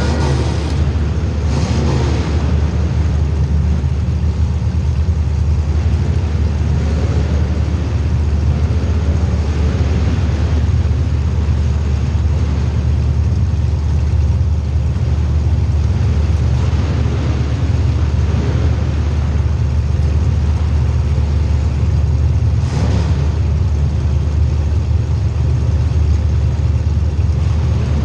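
Race car engines running during a feature race: a steady, loud engine rumble with faint rises and falls in pitch. A brief sharp knock about 23 seconds in.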